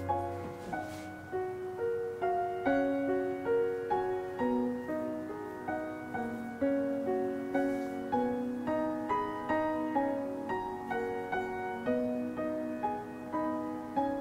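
Gentle background piano music, notes struck about twice a second and left to fade.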